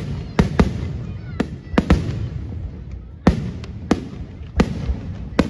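Fireworks going off: about ten sharp bangs at irregular intervals, some in quick pairs, over a low rumble.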